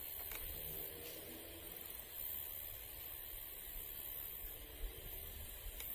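Steady outdoor hiss with a low wind rumble on the microphone, and no gunshot.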